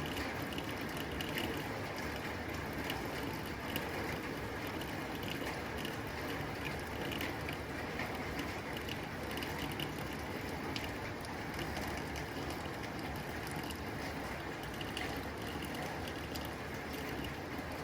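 Rain falling on a tin roof: a steady wash of rain with many individual drops ticking sharply on the metal.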